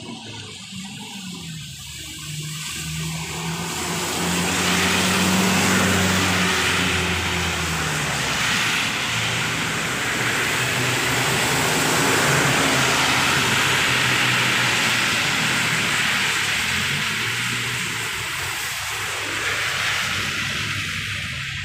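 Heavy traffic passing on a wet road: the low hum of a large vehicle's engine, and a long hiss of tyres on wet asphalt that swells about four seconds in and eases near the end.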